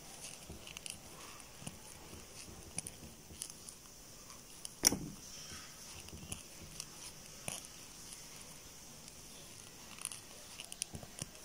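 Faint scattered clicks and rustles of a crochet hook and yarn being worked into double crochet stitches, with one sharper click about five seconds in.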